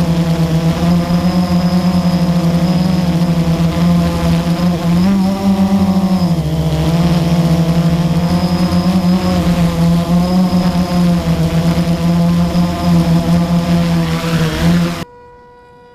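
Blade 350 QX quadcopter's four electric motors and propellers running steadily in flight. The pitch rises slightly and then dips about six seconds in, and the sound cuts off suddenly near the end as the drone sets down and the motors stop.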